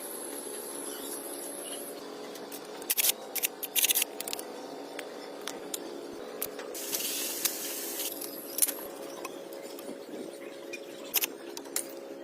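Short hissing spray bursts and sharp clicks over a steady low hum. The longest hiss lasts about a second and a half, just past the middle.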